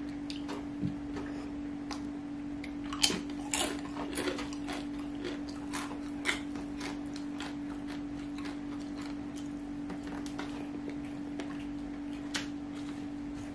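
Close-up eating by hand: wet mouth clicks and chewing with fingers working fried rice on a paper-lined metal tray, heard as many small irregular clicks, the loudest a few about three seconds in. A steady low hum runs underneath.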